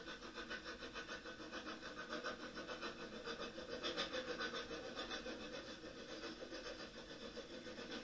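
Streamlined Soviet steam locomotive running at speed, its exhaust beating in a fast, even rhythm over a steady hiss of steam, heard through a television speaker.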